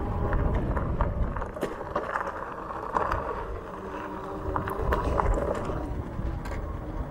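Heavily loaded electric bike climbing a steep dirt trail: a steady motor whine over rumbling tyres and wind on the microphone, with scattered clicks and rattles from the bike and its load over bumps.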